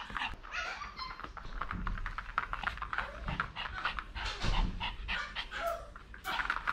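Maltese dog panting and giving short whines in eager impatience, the sign of a dog worked up about being left out of a walk, with fabric rustling as dog clothes are pulled on.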